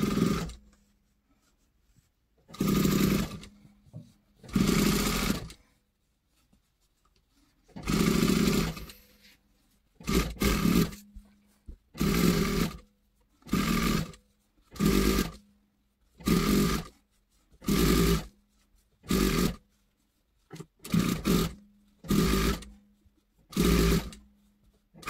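SunStar industrial single-needle sewing machine topstitching fabric in a stop-start run of about fourteen short bursts, each half a second to a second and a half long, with brief pauses between, the runs coming faster in the second half.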